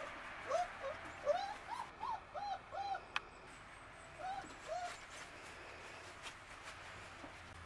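Puppies yipping: a quick run of short, rising-and-falling yips in the first three seconds, then two more about four and a half seconds in. There is one sharp click just after three seconds.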